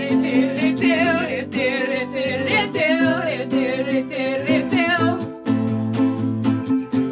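Electric guitar and ukulele strummed together under a woman's singing voice with a wavering vibrato, a live duo cover song.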